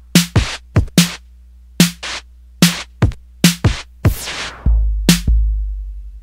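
Instrumental outro of a hip-hop track: a drum-machine beat of sharp hits over a steady low bass, with a longer hissing hit about four seconds in, then the music dies away near the end.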